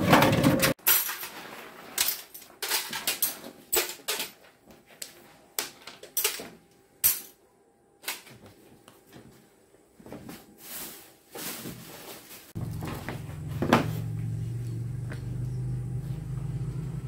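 Scattered knocks and clatters of the stainless-steel tuber stick-cutting machine being handled. About twelve seconds in, its electric motor is switched on and runs with a steady low hum, unloaded.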